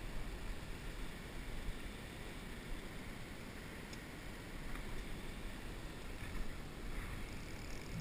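Steady rush of flowing river water, with a low wind rumble on the microphone.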